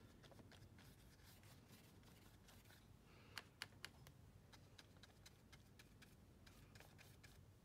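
Near silence with faint scratchy strokes of a paintbrush on paper, and three light ticks about three and a half seconds in.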